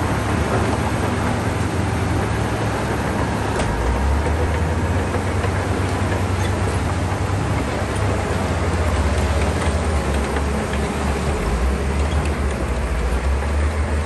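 Heavy earthmoving machine's diesel engine running steadily with a deep, continuous rumble, its low pitch shifting slightly a few times.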